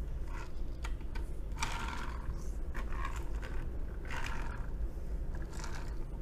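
Small die-cast toy jeep's wheels rolling and scraping on a hard surface as it is pushed back and forth by hand, in about four short passes with a few light clicks.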